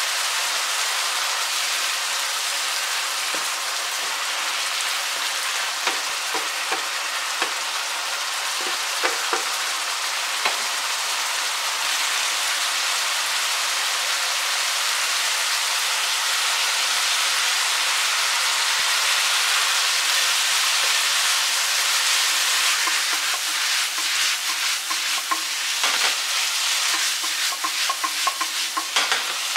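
Beef mince, chilli and green beans sizzling and steaming in a frying pan, a steady hiss with water just added to the pan. Near the end a run of clicks and scrapes as the pan is shaken and tossed.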